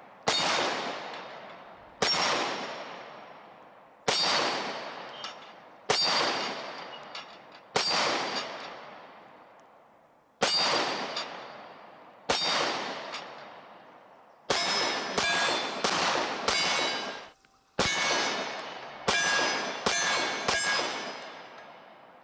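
Glock 26 9mm pistol fired about fifteen times, slowly at first with about two seconds between shots, then in quicker strings in the last third. Each shot is followed by a long fading ring of struck steel targets.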